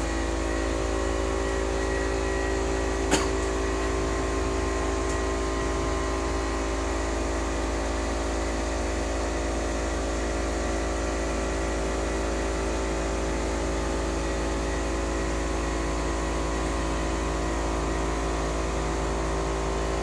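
Steady hum of a running motor or fan, holding several even tones with a low rumble underneath, and one short click about three seconds in.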